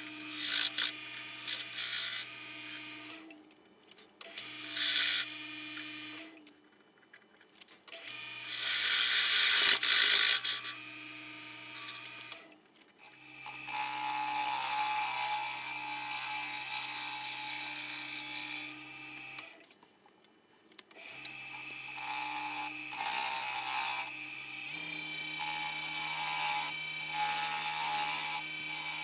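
Wood lathe running while a gouge cuts the outside of a dry spalted maple bowl blank: stretches of hissing, scraping cutting noise that stop and start, over a steady motor hum.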